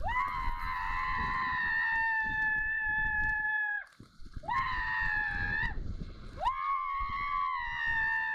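A woman screaming while riding down a water slide: three long, high, held screams, the first about four seconds long, a short one in the middle, and a third starting past the halfway point, over a low rush of water.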